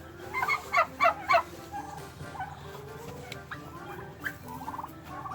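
Domestic turkey gobbling: a quick loud burst of about four rattling calls in the first second and a half, followed by softer, low gliding calls.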